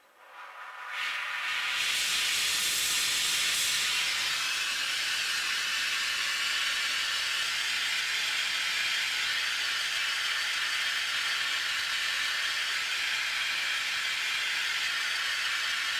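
Oxy-acetylene torch flame hissing steadily, preheating a cast iron part before welding. The hiss swells in about a second in, then holds steady.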